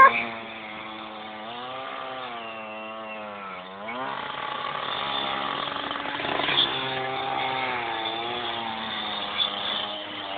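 Small two-stroke petrol saw running at high revs, cutting into a speed camera. Its pitch rises and falls, dips sharply about four seconds in, then picks up and runs louder.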